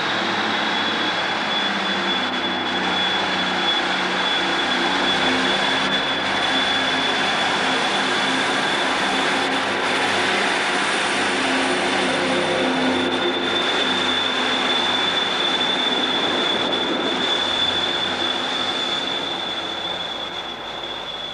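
British Rail Class 150 Sprinter diesel multiple unit pulling out of the platform, its underfloor diesel engines running under load with notes that shift in pitch, over a steady high whine. It fades as the unit draws away near the end.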